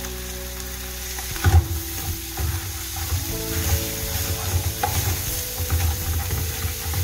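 A wooden spoon stirring a tuna, tomato and coriander mixture frying in a steel pan, with sizzling throughout. The stirring starts about a second and a half in, with irregular knocks and scrapes of the spoon against the pan.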